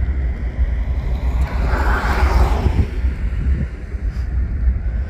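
CN freight diesel locomotives (GE ES44AC and ET44AC units) running in a distant, low rumble, with wind buffeting the microphone. About two seconds in, a brief rush of noise rises and fades.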